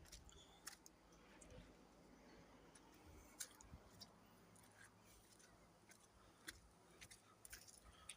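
Near silence with faint, scattered clicks and crackles.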